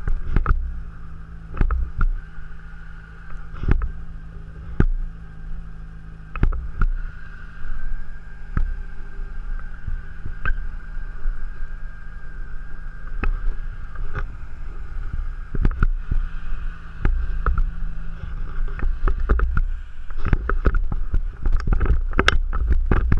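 Storm wind buffeting the microphone, a constant low rumble broken by irregular pops and thumps, with a steady high tone held underneath through most of it.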